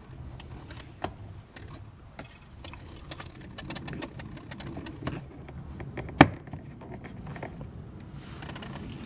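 Small plastic clicks and handling noises as an LED door courtesy-light housing is plugged in and pressed into a car's door trim panel, with one sharp, loud click about six seconds in.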